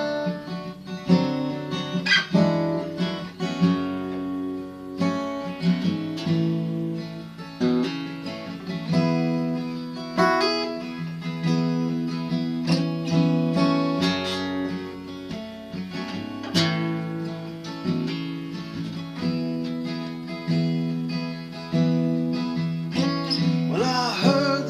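Acoustic guitar instrumental break: chords strummed and picked steadily with no singing.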